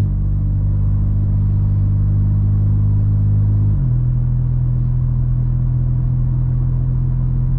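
Volkswagen T-Cross's 1.0 TSI turbo three-cylinder on a Stage 1 remap, its exhaust disconnected right after the catalytic converter so it runs open with no intermediate pipe or muffler. It drones loudly inside the cabin while driving. The low drone holds one steady note, then steps up in pitch a little under four seconds in.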